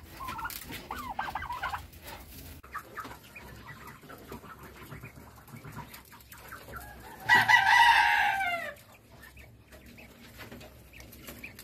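A rooster crows once about seven seconds in: one long call of about a second and a half that falls in pitch at the end. Softer clucking comes in the first couple of seconds.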